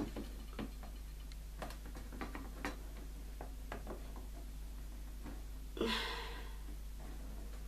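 Irregular light clicks and taps from a plastic enclosure and its lid being handled, with a louder brief rustle about six seconds in, over a steady low hum.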